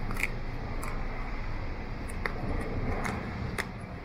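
Husky mix dog chewing frozen raw food, a few sharp crunches at uneven intervals over a steady low rumble.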